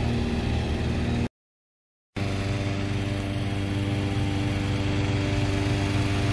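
Petrol-engined hot-air balloon inflator fan running steadily, blowing cold air into the envelope at the cold-inflation stage. The sound cuts out completely for under a second about a second in, and the engine hum comes back at a slightly higher pitch.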